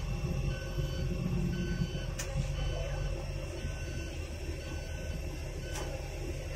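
Steady low engine rumble of an airport apron shuttle bus, heard from inside the cabin while it drives. A faint short high beep repeats about once a second, with an occasional click.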